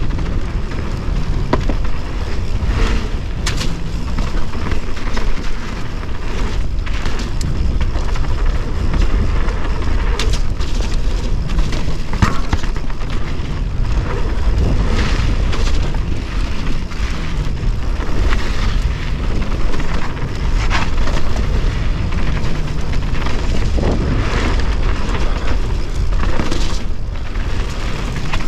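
Wind buffeting the microphone of a camera on a mountain bike riding fast down dirt singletrack: a steady deep rumble, with the knobby tyres on dirt and the bike's chain and parts rattling over bumps, and now and then a sharper knock.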